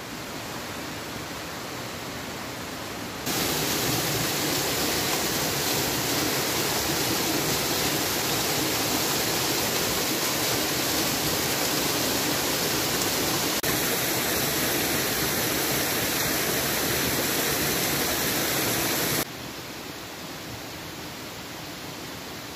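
Woodland waterfall rushing steadily. The sound jumps louder about three seconds in and drops back to a fainter, steady rush about three seconds before the end.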